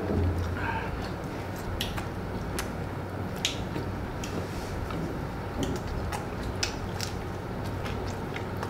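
Quiet eating sounds: a man chewing a piece of fried chilli chicken and licking his fingers, heard as scattered small wet clicks and smacks over a low steady room hum.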